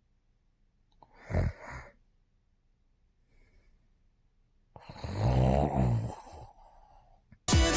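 A man snoring: a short snore about a second in, a faint one in the middle, then a long, louder snore with a rattling, buzzing drone about five seconds in.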